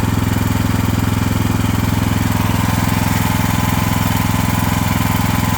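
AGT H12R mini excavator's small engine running steadily, warmed up after about 45 minutes of work, with a faint steady whine coming in about halfway through.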